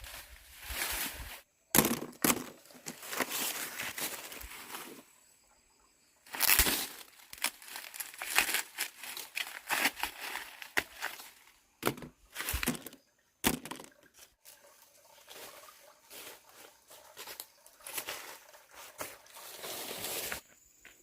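Irregular rustling and crinkling, with a few sharp knocks in between.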